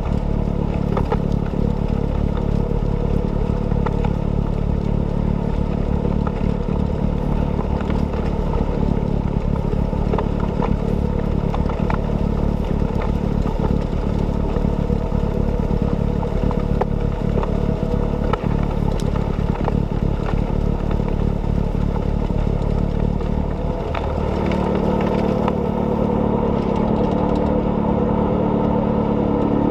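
John Deere 6110R tractor's diesel engine running steadily under load with the snow blower; its note changes about three-quarters of the way through.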